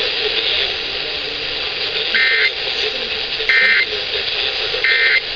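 Emergency Alert System end-of-message code played through a radio speaker: three short bursts of data tones, evenly spaced about 1.3 s apart, over steady hiss. The bursts signal the end of the severe thunderstorm warning broadcast.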